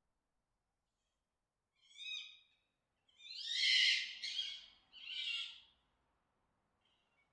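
Fox mating calls: three high-pitched, harsh cries starting about two seconds in. The first is short, the second is the longest and loudest, and the third is a little shorter.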